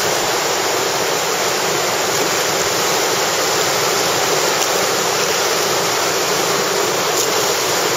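Class III whitewater rapids rushing over rock: loud, steady, unbroken water noise.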